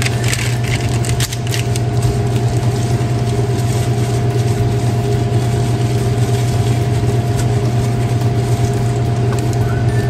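Loud steady machine hum, unchanging throughout, with a thin steady whine above it. In the first two seconds there is a light crinkle of plastic gloves handling dough.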